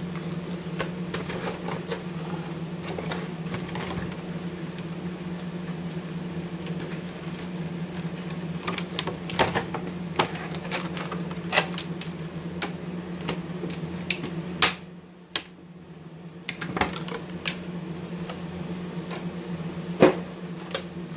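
Scattered clicks, taps and knocks of a trading card game box and its packaging being handled and opened, over a steady low hum. The hum and all other sound drop out briefly about two-thirds through.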